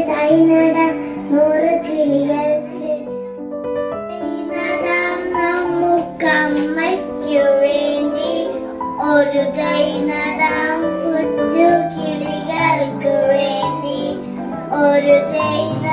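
Young girls singing a song into a microphone, with a keyboard accompaniment of held low notes that change step by step beneath the melody.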